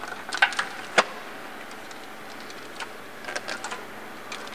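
Sharp clicks and light rattles from hands working wiring under a vehicle: a few clicks near the start, one sharp click about a second in, and a quick run of small ticks a little past three seconds in.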